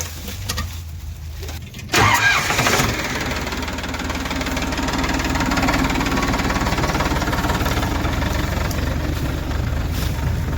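A diesel engine catches with a sudden loud rise about two seconds in, then runs steadily.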